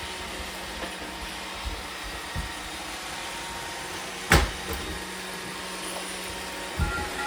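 Robot vacuum cleaners running with a steady whir across a hard floor. A few light knocks, and one sharp knock about four seconds in, the loudest sound.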